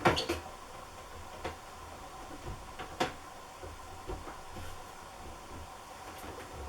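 A few light clicks and knocks from the washing machine's water supply taps being handled and opened slowly, over a faint steady background.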